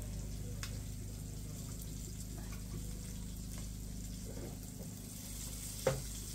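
Food frying in oil in a pan, a steady sizzle with a few light clicks, and one sharp knock about six seconds in.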